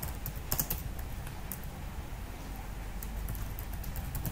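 Typing on a computer keyboard: irregular, scattered key clicks over a low steady hum.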